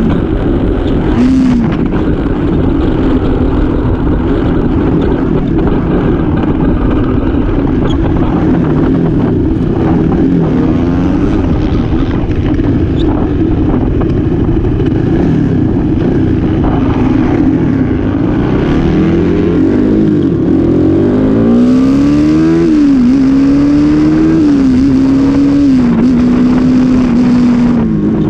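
Motorcycle engine running at road speed with heavy wind noise on the microphone. From about two-thirds of the way in, the engine note climbs and drops several times as the rider works the throttle.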